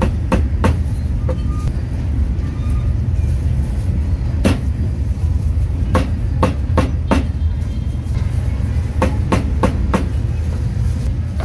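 Cleaver chopping roast meat on a wooden block: a dozen or so sharp chops at uneven spacing, some in quick runs of two to four. A steady low rumble runs under them.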